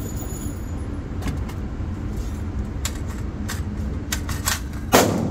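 Sharp metallic clicks of an AR-style rifle being handled and readied, over a steady low rumble. About five seconds in comes a single loud bang, the loudest sound.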